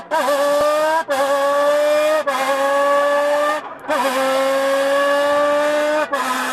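A person making a rally-car engine sound with a beer can: a buzzing pitched tone that climbs slowly, breaks off briefly four times, and restarts a little lower each time, like a car shifting up through the gears.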